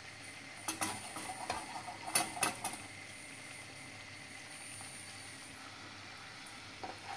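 A few sharp metal clicks and knocks in the first three seconds as a small metal pan is handled on a gas hob's iron grate, then a faint steady hiss as the oil with red pepper flakes heats in it.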